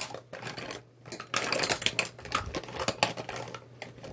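Rummaging through a makeup bag full of cosmetics: compacts, tubes and cases click and clatter against each other in a quick, irregular run, busiest from about a second in until near the end.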